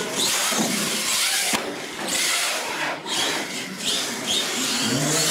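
RC monster truck driving hard on concrete: a high electric motor whine that rises and falls with the throttle, over a steady hiss of tyres, cutting back briefly a few times as the throttle is lifted.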